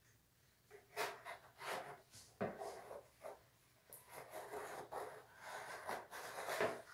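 Hands working wet white porcelain clay slurry in a basin, scraping and rubbing the clay against the basin's sides in irregular strokes with a few sharper knocks, denser from about four seconds in. It is the washing (levigation) stage of refining the porcelain clay body.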